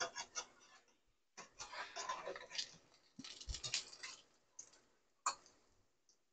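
Potato pancakes shallow-frying in hot oil: faint, irregular crackling and popping of the oil, coming in several short spells.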